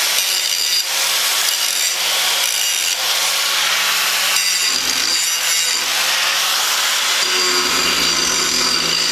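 Angle grinder running steadily with a hiss and a motor hum, grinding the edge off a steel chain-link fence hinge held in a vise. The hum shifts about five seconds in and again a couple of seconds later as the load on the disc changes.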